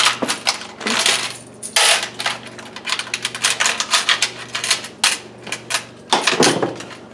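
Quarters clinking against each other and a plastic coin tray as they are counted out by hand: a quick, uneven run of small metallic clicks with a few longer rattles. A faint steady hum lies underneath.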